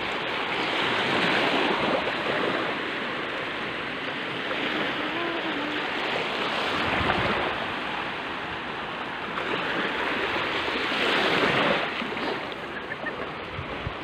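Sea waves washing onto the shore: a steady rush of surf that swells twice, once soon after the start and again near the end.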